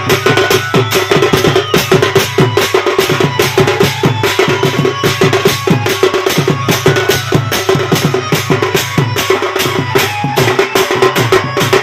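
Dhol barrel drum played fast with a curved stick and the bare hand: a loud, driving run of rapid strokes, several a second, without a break.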